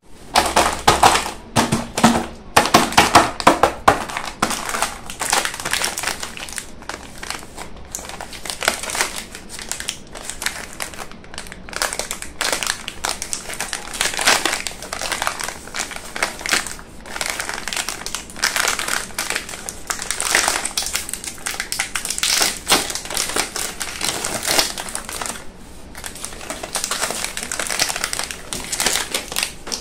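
Plastic biscuit wrapper crinkling and crackling as hands squeeze, twist and open a packet of Parle Hide & Seek chocolate chip cookies; loudest in the first few seconds.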